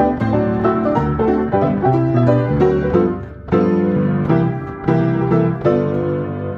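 Player piano playing a perforated paper roll, reaching the closing bars of the tune. Busy piano chords give way to four separate struck chords near the end, which then begin to die away.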